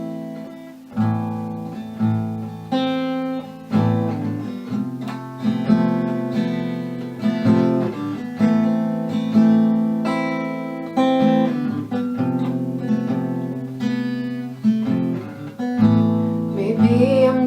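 Acoustic guitar playing the song's intro: picked chords, each ringing out and fading before the next, at a steady easy pace.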